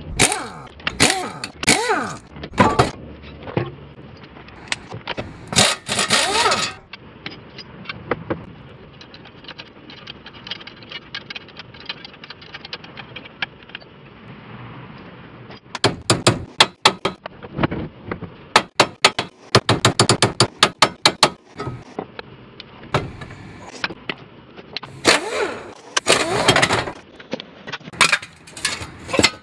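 Air impact wrench run in short bursts on wheel and suspension fasteners, among metal clanks, knocks and scrapes as parts come off, with a fast run of sharp knocks in the middle.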